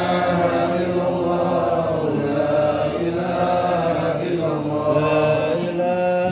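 A man chanting an Arabic Islamic prayer in a slow, melodic style, with long drawn-out notes that glide up and down.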